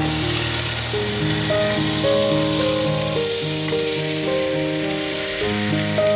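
Butter sizzling as it melts in a hot metal pan, loudest at first and slowly easing. Background music with held notes plays along.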